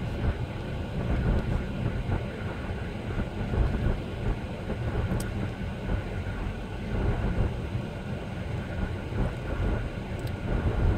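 Steady low road and engine rumble heard from inside a Jeep Wrangler JK's cabin as it drives.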